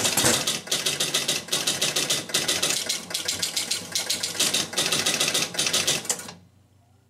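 1976 Gottlieb Target Alpha electromechanical pinball machine running its game-reset cycle: a rapid clatter of relays and score reels stepping back to zero, cutting off suddenly about six seconds in.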